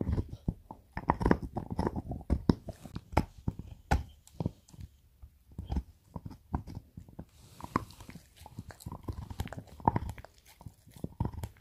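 A dog gnawing a deer antler chew: irregular crunches and clicks of teeth scraping and biting on the hard antler, with a couple of short lulls.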